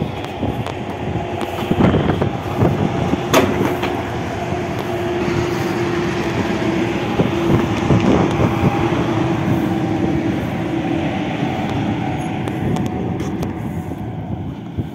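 A heavy vehicle passing on a road: a steady engine hum over continuous tyre and road noise.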